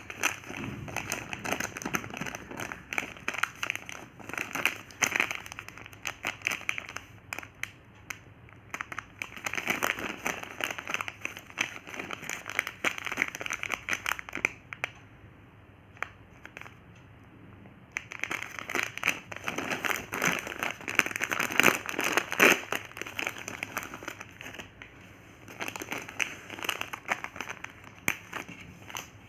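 Plastic Gems candy packets crinkling and rustling as they are handled and unwrapped, in irregular bursts with a quieter lull about halfway through.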